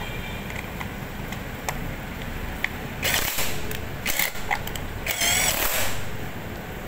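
Hands working on the fuel hose fittings at a motorcycle's fuel tank make three short bursts of rustling and scraping, about three, four and five seconds in.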